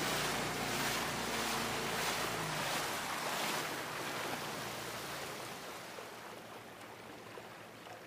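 Small tiller outboard motor pushing an aluminium boat along, with water rushing and splashing past the hull. About three seconds in, the motor's hum drops away as it is throttled back, and the rush of water fades down as the boat slows.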